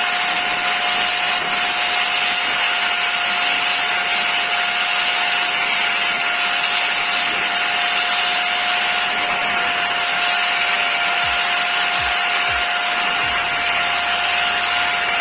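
Electric angle grinder running at a steady high whine with a hissing grind as it sharpens the edge of a steel blade.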